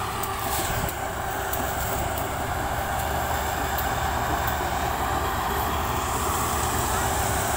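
Sugarcane harvester running as it cuts standing cane: engine and cutting gear make a steady, dense mechanical noise.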